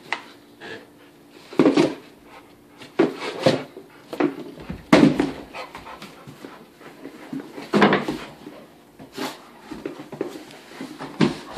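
A golden retriever panting as it plays with a small cardboard box, the box scraping and knocking on the rug in irregular short bursts.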